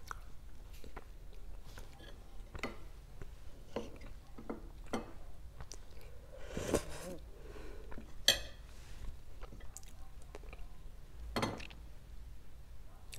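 Close-up soft chewing and wet mouth sounds from eating milky Indian sweets, with a louder spoonful taken about seven seconds in and a sharp clink of the metal spoon just after.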